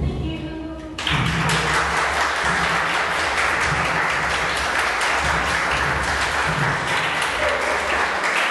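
An audience applauding: dense clapping that breaks out suddenly about a second in and keeps up steadily.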